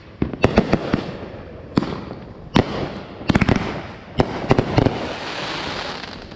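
Fireworks going off: a series of sharp bangs about every second, some single reports and some in quick crackling clusters, with a hiss near the end.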